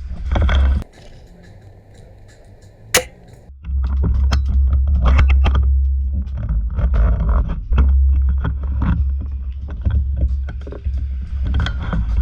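Heavy low rumble on the microphone with rustling and scuffing of movement, and one sharp snap about three seconds in.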